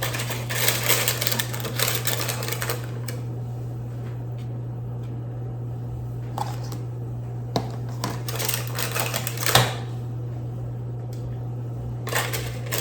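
A utensil scraping and clattering against a pan and dishes as cooked salmon pieces are lifted and set into meal-prep bowls: three bouts of scraping, a few single clicks, and one sharper knock near the middle, over a steady low hum.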